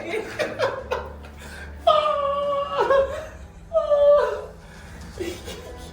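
A person's voice laughing, then two drawn-out, high-pitched cries, each dropping in pitch at its end.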